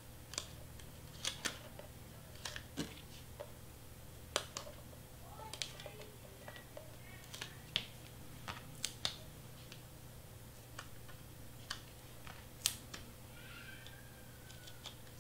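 Faint, irregular small clicks and taps as fingers peel small squares of double-sided foam tape and press them onto a piece of cardstock, over a steady low hum.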